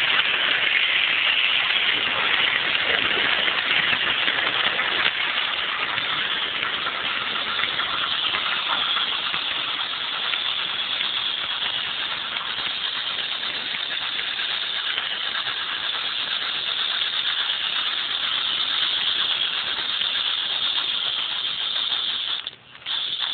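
Märklin model steam train running along the layout track, heard from a car riding right behind the locomotive: a steady rattle and hiss of wheels on rails and the locomotive's motor. The sound cuts out for a moment near the end.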